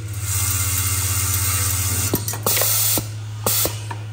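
Vibratory bowl feeder for screws running, a steady hum with the screws rattling and hissing around the vibrating bowl. It runs for about two seconds, stops, then starts again in two short bursts as its controller buttons are pressed, with a few button clicks between.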